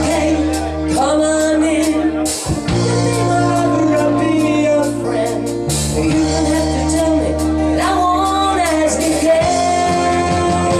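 Live country band playing through a PA: guitars, bass notes and drums, with a woman singing lead.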